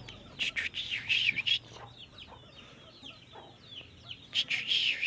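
Sooty-headed bulbul giving bubbly, chirpy song phrases in two loud bouts, one about half a second in and one near the end, with quieter chirps between.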